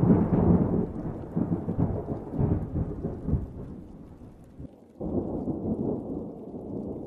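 Thunder sound effect: a loud rumbling crash that slowly fades, then a second rumbling blast about five seconds in.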